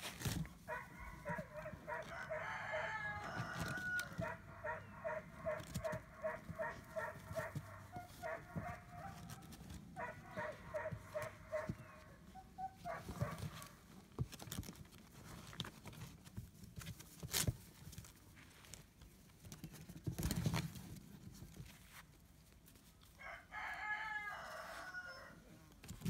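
An animal giving a rhythmic run of short, pitched calls, about two a second, for much of the first half and again briefly near the end. Two sharp knocks in between are the loudest sounds.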